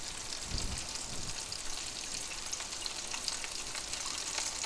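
Smoked sausage links frying in oil in a non-stick skillet: a steady sizzling hiss with small scattered crackles and pops.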